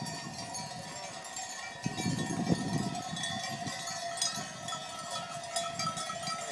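Many sheep bells clanking and ringing irregularly as a flock of sheep walks past, with a low rumble about two seconds in.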